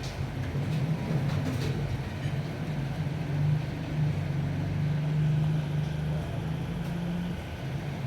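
Steady low mechanical hum with a faint background rumble.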